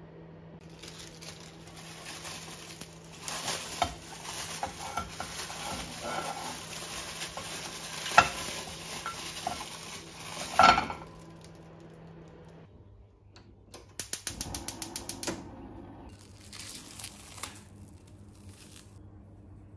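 Frozen diced tomatoes being pushed out of a plastic freezer bag into a hot frying pan: a crackling sizzle with crinkling plastic, and two sharp knocks, about eight and ten and a half seconds in, the second the loudest. It stops suddenly, followed by a quick run of clicks and then the rustle of cling film being peeled back from a glass bowl.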